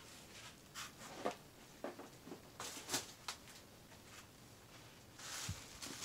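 Plastic bubble wrap crinkling under gloved hands: scattered soft crackles at first, then steadier rustling from about five seconds in as the sheet is picked up and handled.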